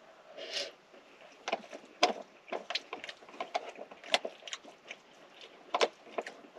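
Spoon clicking and scraping inside a foil Mountain House freeze-dried meal pouch as food is eaten from it: irregular short clicks, several a second, the sharpest about two, four and nearly six seconds in.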